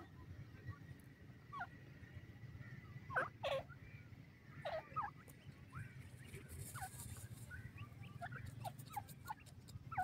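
Francolins giving soft calls: many short chirping notes, scattered and irregular, with a few louder calls about three and a half and five seconds in.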